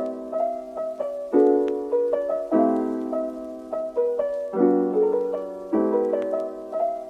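Piano music: sustained chords struck every second or two, with a melody of shorter notes above them.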